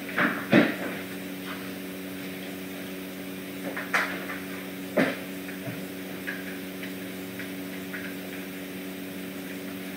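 A steady low electrical or mechanical hum of room equipment, with a few light knocks and bumps: two near the start, one about four seconds in and one about five seconds in.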